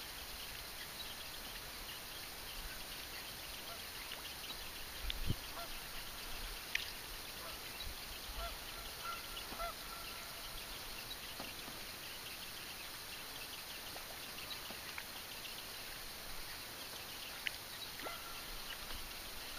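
Faint, scattered short bird calls over a quiet outdoor background, with light clicks and one soft thump about five seconds in.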